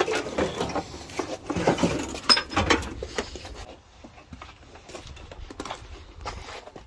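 Scattered metallic clinks and knocks of tools and engine parts being handled, busier in the first few seconds with a sharp ringing ping about two and a half seconds in, then sparser.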